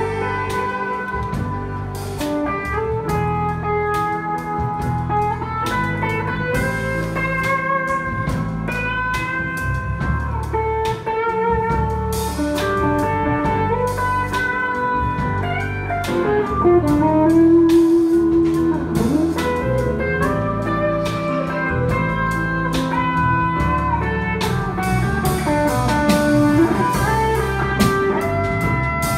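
Live jazz band playing: an electric guitar carries a bending lead melody over electric keyboard, electric bass and drum kit.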